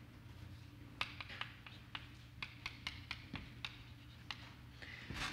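Chalk tapping and scratching on a blackboard during writing: a run of sharp, irregular clicks over a steady low hum.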